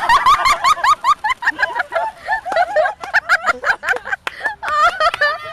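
Hard, high-pitched laughter close to the microphone: a fast, nearly unbroken run of giggles, several a second.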